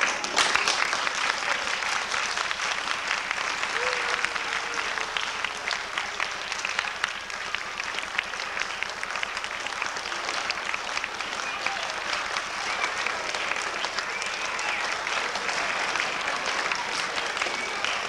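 Audience applauding: many hands clapping steadily, starting suddenly.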